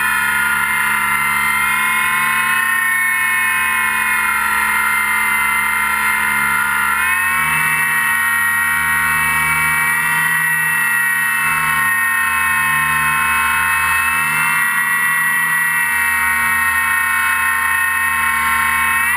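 RC airplane's motor and propeller running steadily at high speed, a whine with several steady tones, heard from a camera mounted on the plane. The pitch steps up slightly about seven seconds in, as the throttle changes.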